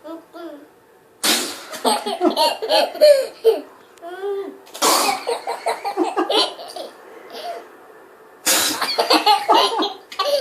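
A man fake-sneezing three times. Each sudden sneeze is followed by a toddler's fit of laughter.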